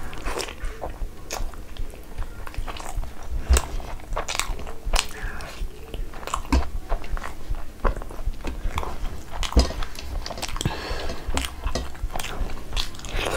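Close-miked chewing of a mouthful of butter chicken curry, with many irregular wet smacks and clicks from the mouth.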